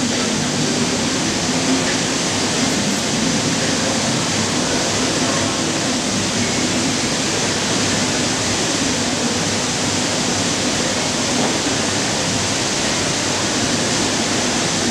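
A steady, even rushing noise with no clear pitch or rhythm, unchanging throughout.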